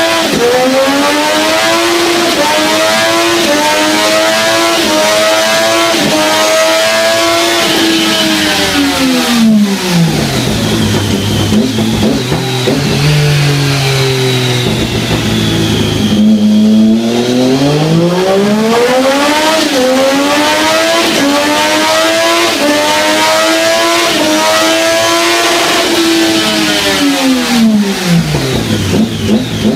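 Triumph Daytona 675's inline three-cylinder engine through an Akrapovic exhaust, revving hard twice. The revs climb steeply and hold high for several seconds with small dips, then drop back toward idle about ten seconds in. A second run starts at about sixteen seconds and falls back near the end.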